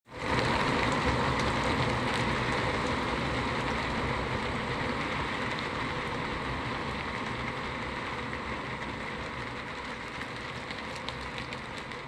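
Steady rain-like hiss with faint scattered ticks, slowly fading out.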